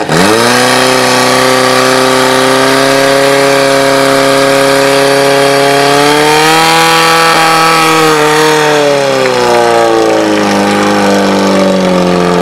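Portable fire-sport pump's petrol engine running at full throttle under load as it drives water to the attack hoses. Its pitch dips sharply at the start and recovers, holds high and steady, rises for a couple of seconds about six seconds in, then sinks gradually toward the end.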